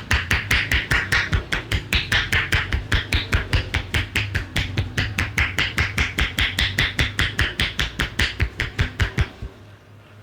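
Hands striking in rapid percussive champi massage strokes, a steady rhythm of sharp slaps at about five or six a second that stops about nine seconds in.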